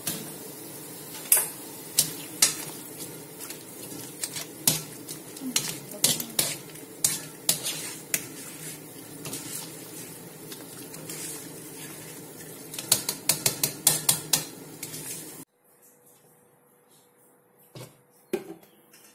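Metal wire strainer knocking and scraping against a wok as blanched bok choy is scooped out of simmering water, over a steady hiss of the water, with a quick run of clinks near the end. About three-quarters through the sound cuts off abruptly to near quiet, broken by a couple of soft knocks.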